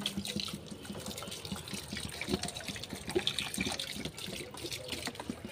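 Water pouring from a plastic bottle onto a potted plant's leaves and soil, trickling with irregular small splashes and drips.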